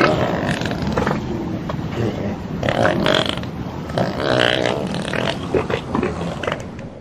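Elephants rumbling and growling, a continuous low grumbling with a few louder calls, easing off near the end.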